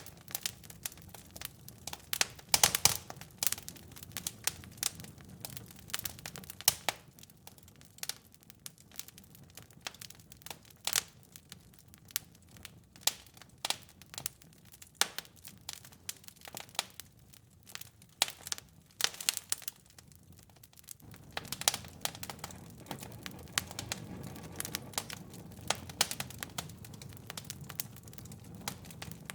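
Wood fire in a fireplace crackling, with irregular sharp pops and snaps over a soft low rumble of burning. The low rumble grows louder about two-thirds of the way through.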